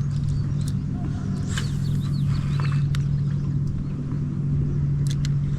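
Boat motor running with a steady low hum at one unchanging pitch, with a few sharp clicks and faint bird chirps over it.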